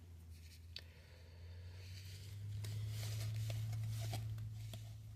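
Trading cards from a thick hanger pack being handled, with light rustling and small clicks as the cards slide and are flipped. Under it a low steady hum swells up in the middle and is the loudest sound, then fades near the end.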